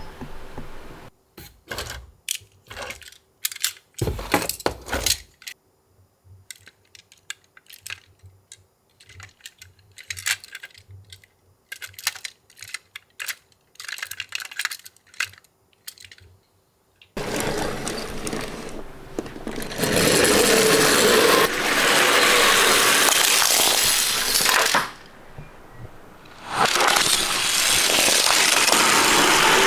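Light, sharp clicks and taps, like small toy-car parts being handled and knocked together. A little past halfway a loud, steady rushing noise starts and runs on, dropping away briefly near the end.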